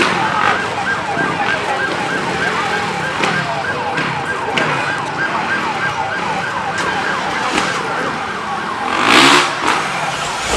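Siren wailing in a fast, repeating rise and fall, over a busy background, with a short loud burst about nine seconds in.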